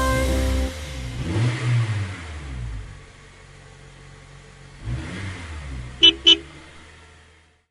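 A cartoon vehicle sound effect: an engine sweeping past in a rising-then-falling drone, passing again about five seconds in, followed by two quick horn honks. The last chord of a children's song dies away in the opening second.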